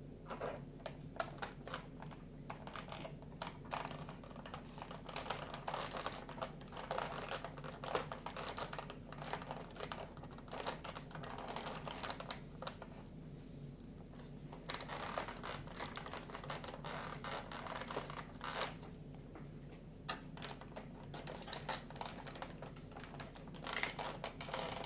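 Cardboard 3D puzzle pieces being handled and pressed into place on the model: irregular soft clicks, taps and scratches of card against card.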